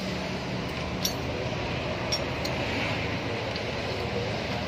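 Light metallic clinks of hand tools and loose parts on the rocker-arm assembly of a Mitsubishi L300 petrol engine's cylinder head during a teardown, a few separate clicks over a steady low hum.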